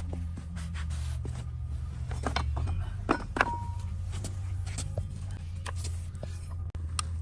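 A steady low engine-like hum with scattered clicks and knocks over it. Two sharp metallic clinks come about three seconds in, the second ringing briefly.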